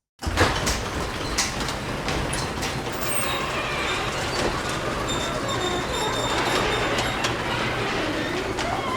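Garage door moving along its tracks: a steady rumble and rattle with scattered clicks, starting suddenly at the beginning.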